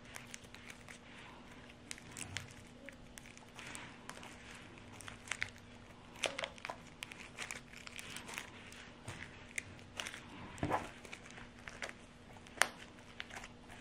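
Thick pink slime being squeezed and kneaded by hand around a balloon, giving irregular sticky clicks and crackles, with one sharper snap near the end.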